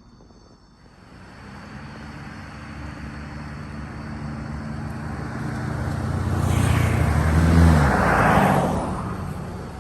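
A motor vehicle driving past close by: engine and tyre noise build up, peak about eight seconds in as the engine tone drops in pitch, then fade away.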